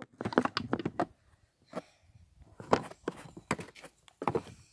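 Grooming brushes being packed back into a grooming box: a quick run of knocks and clatter in the first second, then single knocks about once a second.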